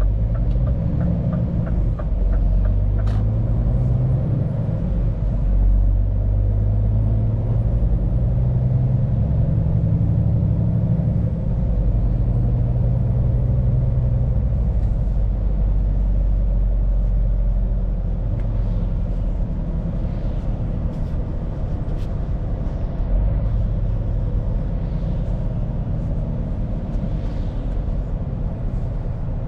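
Scania P410 truck's diesel engine heard from inside the cab while driving: the engine note climbs and drops back about three times in the first twelve seconds as it pulls through the gears, then holds a steady cruising drone. A fast regular ticking sounds over the first couple of seconds.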